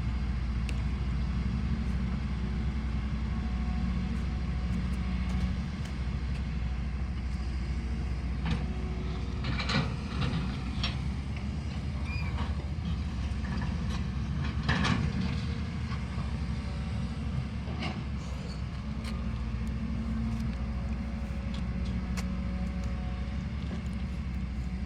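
Steady low engine hum and running noise of a motor vehicle in motion, with a few short knocks and rattles about a third and halfway through.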